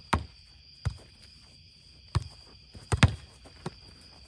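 A boardball rally: a ball smacked by hand and bouncing off the low game board in sharp hits, about seven of them, with the loudest pair about three seconds in. Insects trill steadily behind.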